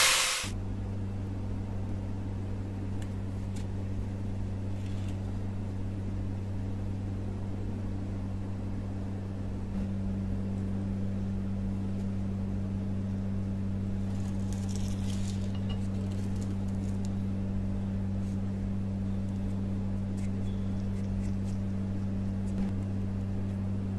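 An angle grinder's grinding cuts off abruptly at the start, leaving a steady low electrical hum with a few faint light ticks.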